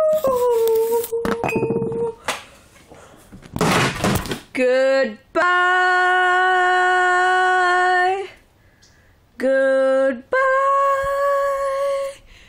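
A boy's voice singing a series of long, steady held notes at a few different pitches, the longest about three seconds, each breaking off abruptly. Clicks and knocks from the phone being handled near the start, and a short rush of noise about four seconds in.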